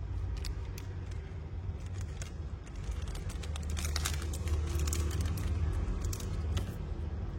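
Light, irregular metallic clicks and taps from a Zippo lighter's brass case being handled, over a steady low hum.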